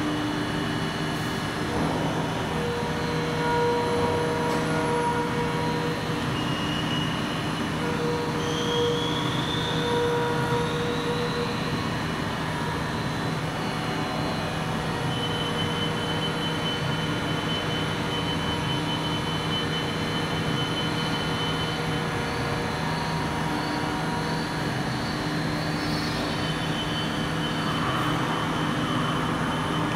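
Steady machinery hum made of several tones that come and go, with a high whine that rises in pitch about nine seconds in.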